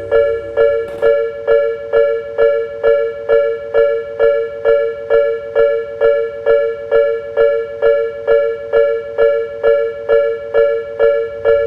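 Railroad level-crossing warning bell ringing steadily, an even run of bright pitched strikes at a little over two a second.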